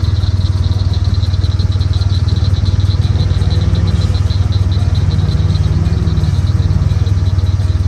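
Side-by-side UTV engine idling steadily close by, with a quick pulsing firing beat. About five to six seconds in, a second engine rises and falls in pitch under it as the other UTV is driven through water and up a bank.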